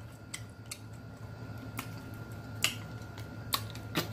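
Close-miked eating of shrimp and mussels: about half a dozen separate sharp wet clicks and smacks spread over a few seconds, over a steady low hum.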